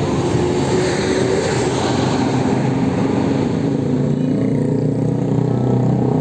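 Bus engine running loudly close by, a steady low engine note over a haze of road noise.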